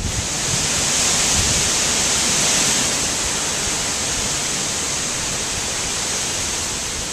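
Hurricane wind rushing through the leaves of tall trees, a dense, steady hiss. It swells a little in the first few seconds, then eases slightly.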